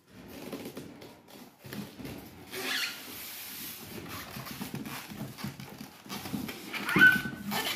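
Packaging rustling and scraping as an electric oven in foam end caps and plastic wrap is pulled up out of its cardboard box, with a short squeak near the end.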